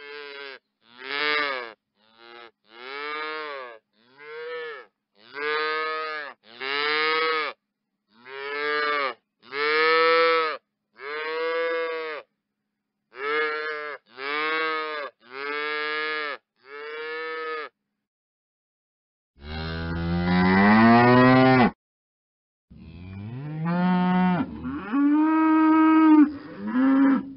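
Cattle mooing in a series of separate calls with silence between them. First come about fourteen short calls, each rising then falling in pitch. About 19 s in comes a long, louder, deeper moo that rises in pitch, followed by a few more drawn-out moos.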